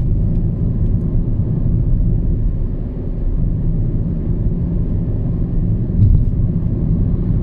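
Steady low rumble of a car driving, engine and road noise heard from inside the cabin, with a brief bump about six seconds in.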